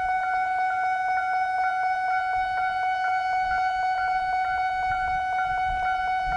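Japanese level-crossing warning bell ringing: an evenly repeated ding about twice a second over a steady ringing tone.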